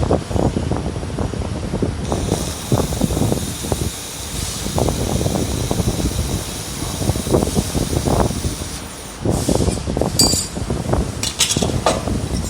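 Handheld laser welder at work: a steady high hiss for several seconds in the middle, over irregular low rumbling and rustling, with a few sharp clicks near the end.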